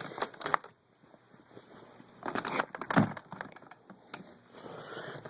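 Plastic clicks, rustling and knocks from handling the dirty-water recovery tank of a Hoover Max Extract 77 carpet cleaner, with the loudest knock about three seconds in and a sharp click a second later.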